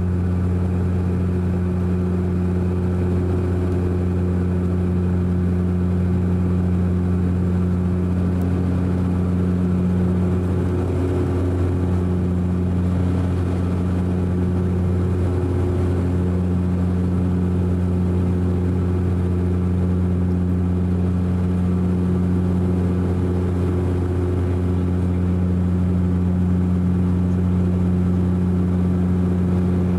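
Cabin sound of a De Havilland Canada Dash 8 Q400 in its climb after takeoff: its Pratt & Whitney Canada PW150A turboprops and six-blade propellers make a steady, loud, deep propeller drone with evenly stacked overtones over a rushing noise. The drone wavers slightly for a few seconds near the middle.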